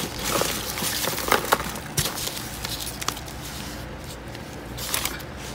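Paper packaging rustling and crinkling as hands dig through a box of crinkle-cut paper shred and gift bags, with a few sharp crackles.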